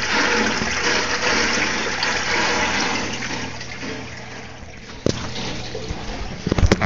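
Water rushing and splashing in a stingray tank, slowly fading over the first few seconds. A sharp knock follows about five seconds in, then a cluster of thumps near the end.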